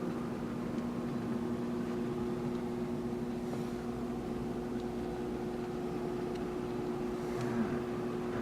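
Steady mechanical hum from equipment running aboard a motor yacht, holding two constant tones, with a few faint clicks.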